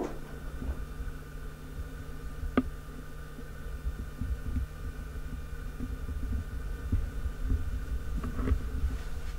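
A single sharp tap about two and a half seconds in, with a few fainter taps near the end, over a low, uneven rumble and a steady hum.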